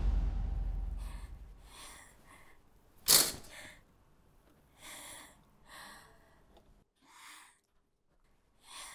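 A low boom fades out, then a person gives a sudden sharp breath about three seconds in. Four or five quieter sniffs and short breaths follow, roughly one a second.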